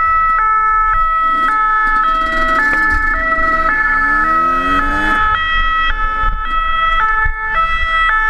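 Two-tone police siren alternating between two pitches about twice a second, with a steady high tone under it. Beneath it are wind rumble and a Yamaha YZ125 two-stroke dirt bike's engine rising and falling in revs.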